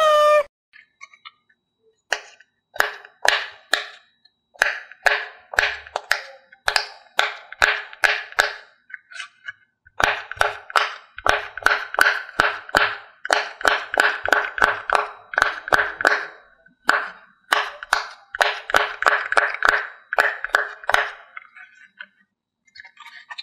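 Bubbles of a silicone pineapple-shaped push-pop fidget toy being pressed in with a finger, one short pop after another. The pops start about two seconds in, a few at a time at first, then come in quick runs of several a second, with short pauses between runs.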